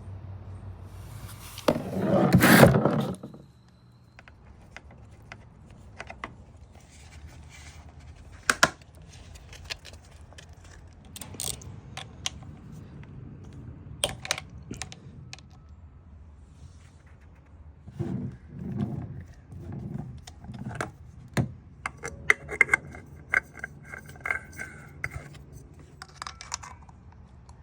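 Metal hand tools clinking, knocking and scraping in short scattered bursts. A short loud rushing noise comes about two seconds in.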